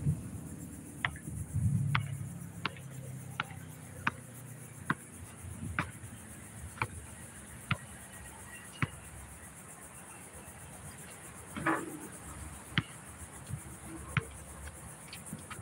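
Basketball bouncing on an outdoor asphalt court as it is dribbled: sharp bounces about once a second, with a pause of a few seconds about two-thirds of the way through.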